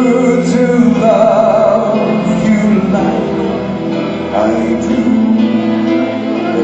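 A male singer singing live into a handheld microphone over backing music, holding notes with a wavering vibrato.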